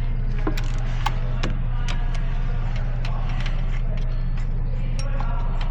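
Ratchet wrench clicking in short, irregular strokes as the number one spark plug is worked out of the engine, over a steady low hum.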